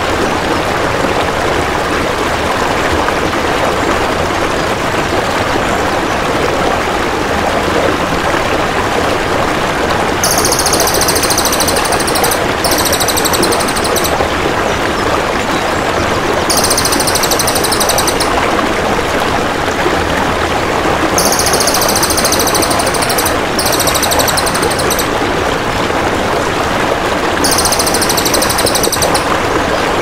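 Steady rush of flowing water, with a cililin's high, rapid trilling call coming in four times in the second half, each trill lasting about two to four seconds.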